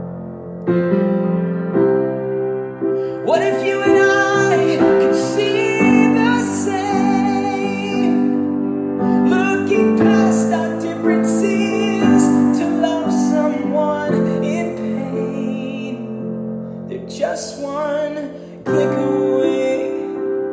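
A man singing a slow song to his own piano accompaniment. Held piano chords play alone at first, then the voice comes in about three seconds in and climbs into high, sustained notes, with short breaks between phrases.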